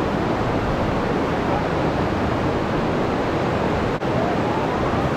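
Steady rush of creek water pouring over rocks, an even noise with no break except a brief dip about four seconds in.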